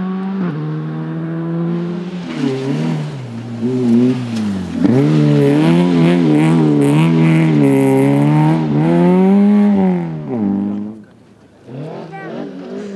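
Rally car engine driven hard, its pitch climbing and falling repeatedly through gear changes and lifts, loudest in the middle. The sound drops away sharply about eleven seconds in before engine noise picks up again.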